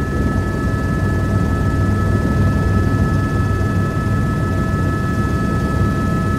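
Helicopter in flight, heard from inside the cabin: a loud, steady low drone from the rotor and engine, with two constant high whining tones over it.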